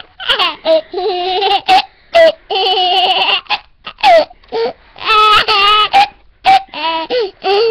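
A toddler laughing hard in many short, high-pitched bursts that glide up and down in pitch.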